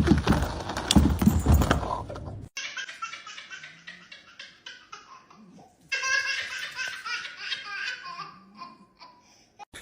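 High-pitched laughter in quick rhythmic bursts, following a couple of seconds of dense, noisy sound.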